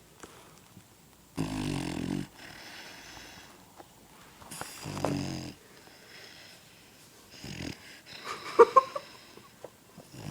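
Dog snoring in its sleep, one snore about every three seconds with softer breaths between. A cluster of brief, sharp, higher sounds, the loudest in the stretch, comes about eight to nine seconds in.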